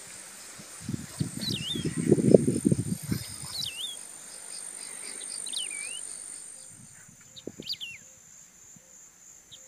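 A bird repeating a short swooping call, dipping then rising, every second or so, over a steady high-pitched insect drone. About a second in, a burst of low rustling and rumbling lasts a couple of seconds and is the loudest sound.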